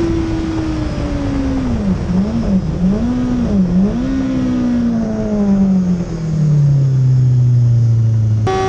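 BMW S1000RR inline-four engine winding down under hard braking: the engine note falls, dips and jumps back up three times as gears are knocked down without a throttle blip, then settles into a low drone. Near the end it cuts abruptly to the engine at high revs.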